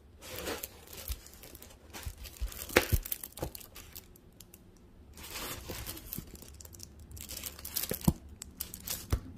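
The plastic film over a rolled diamond painting canvas crinkles and rustles in uneven bursts as the canvas is handled, with a few sharp clicks.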